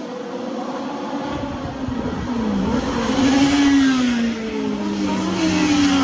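Classic touring race cars passing through a corner on a wet track, their engines falling in pitch as they slow, over the hiss of tyre spray. It gets louder about three seconds in and again near the end as cars come past.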